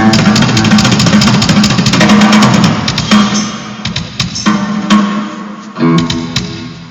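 Rock band playing on stage during a sound check: drum kit and guitars together, loud for about three seconds, then thinning to scattered drum hits and a last chord about six seconds in, winding down.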